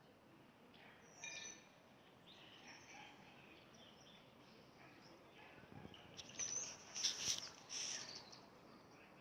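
Small birds chirping now and then as they settle for the night, with a louder cluster of chirps about six to eight seconds in.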